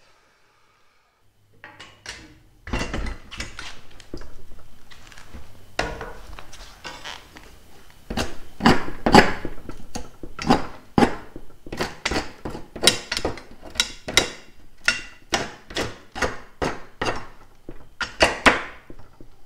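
Repeated knocks and clunks of an OSB panel and its metal wall brackets and clamp being handled and fitted, irregular at first, then coming about two a second.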